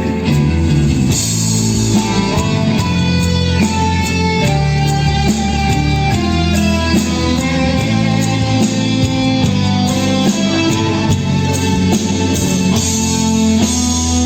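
Instrumental introduction of a song: strummed and plucked guitar with bass and other instruments over a steady beat.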